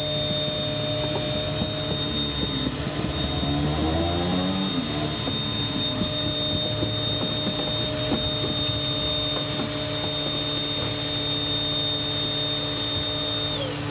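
Electric motor of detailing equipment running with a steady high whine over a low hum. About three to five seconds in, its pitch wavers up and down, and near the end the whine drops in pitch and stops.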